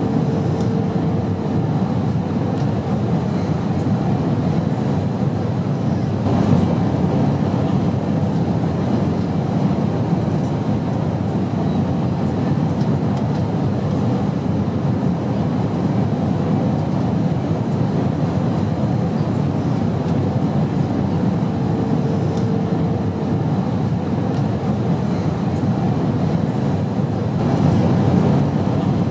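Steady airplane drone: an even, low rumble with a faint hum tone that comes in briefly twice.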